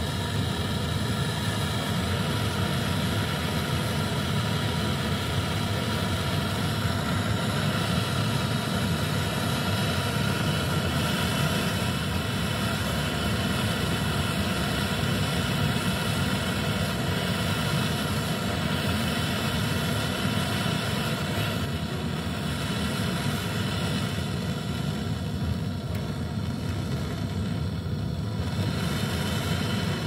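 Gas brazing torch burning steadily while it heats a copper refrigeration pipe joint at the filter drier to red heat.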